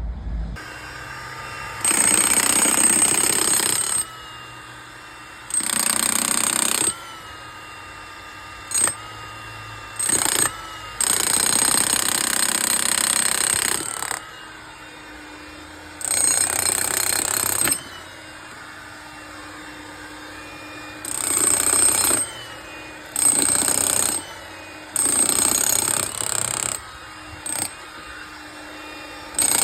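A power tool running in repeated bursts of about one to three seconds each, stopping and starting about a dozen times with short pauses between.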